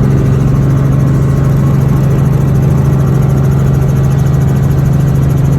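Helicopter running in flight: a loud, steady drone of engine and rotors, with one strong low hum that holds level.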